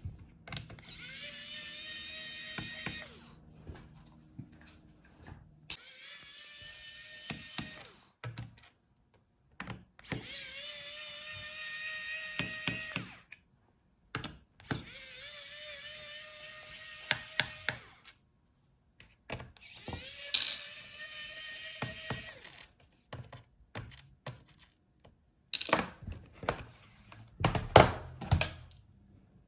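Small electric screwdriver backing out the laptop's bottom-case screws: about six runs of two to three seconds each, its motor hum rising as it spins up. Sharp clicks and taps come between the runs, loudest near the end.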